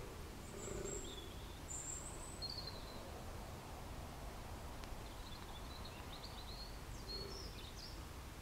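Woodland ambience: small birds give short, high chirps now and then over a steady low rumble.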